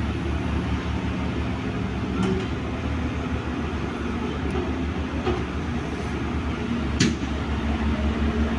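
Excavator diesel engine running steadily while digging, with one sharp metallic clank about seven seconds in and a couple of fainter knocks.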